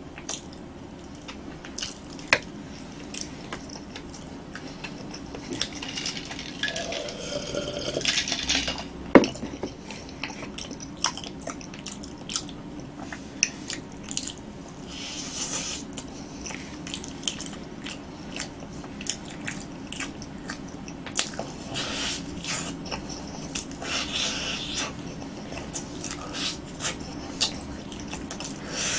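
Close-miked chewing and mouth sounds of a person eating roasted sweet potato: soft wet smacks and small clicks, irregular throughout, over a steady low hum. One sharp click stands out about nine seconds in.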